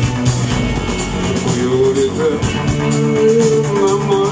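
Rock band playing live through the stage sound system at a soundcheck, guitar to the fore, with a long held melodic line over sustained chords in the second half.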